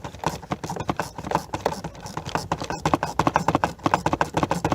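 Quarter-inch drive ratchet clicking rapidly as a long bolt is turned out under a truck dashboard, the clicks coming quicker in the second half.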